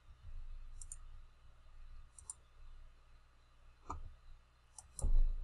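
A handful of computer mouse button clicks, a second or so apart, over a low steady hum, with a low thump near the end.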